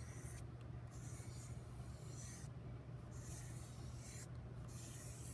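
White chalk pastel scraping across paper in a run of quick strokes, a dry scratchy hiss that starts and stops about five times. A steady low hum sits underneath.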